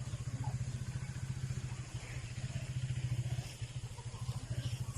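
A small engine running steadily with a rapid, even putter.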